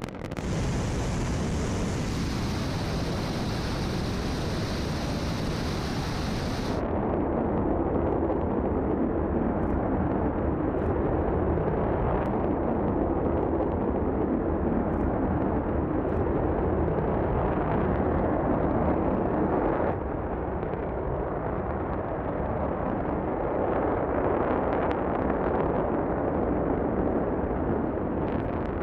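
Northrop Grumman GEM 63XL solid rocket booster firing in a horizontal static test: a continuous, steady roar of rocket exhaust. The tone changes abruptly a few times and turns duller about seven seconds in.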